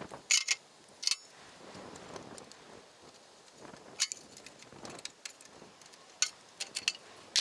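Scattered sharp clicks and knocks with faint shuffling between, in small clusters: the cleanout covers being put back on the unloading auger of a John Deere 9500 combine's grain tank.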